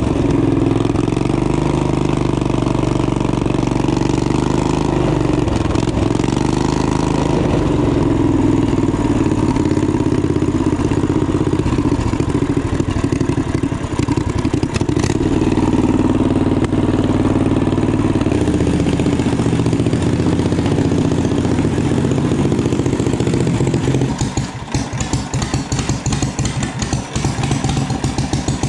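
Home-built motorcycle's V-twin engine running as the bike rides, its pitch rising and falling with the throttle. About 24 seconds in it drops to a lumpy idle with evenly spaced firing pulses.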